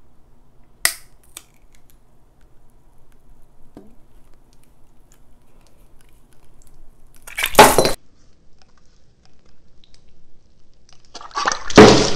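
Pint glass of beer shattering near the end, a loud crash of breaking glass lasting about a second; the drinker puts it down to the beer being too cold. A similar loud crash comes a little past halfway, and a sharp click about a second in.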